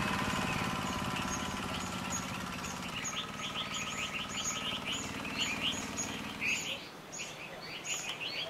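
Small gasoline water pump engine running steadily, fading out after six or seven seconds. From about three seconds in, birds chirp rapidly and repeatedly over it and continue after the engine is gone.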